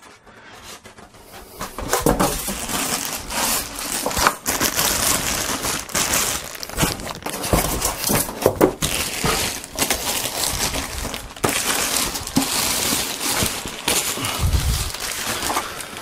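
Packaging being handled: a thin plastic bag and paper wrapping crinkling and rustling as they are pulled off, with many sharp crackles. Quieter for about the first two seconds, then continuous.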